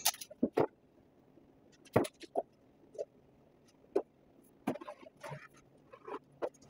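Sheet of vinyl wrap film being handled and laid onto a flat panel: scattered sharp crackles and clicks, irregularly spaced and a second or more apart.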